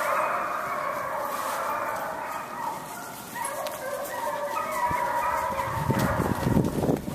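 A pack of foxhounds in cry, many overlapping baying voices at once. A low rumble of noise on the microphone comes in near the end.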